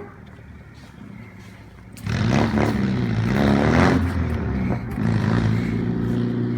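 Car engine revving up and down hard for about two seconds, starting about two seconds in after a quieter stretch, then running on steadily.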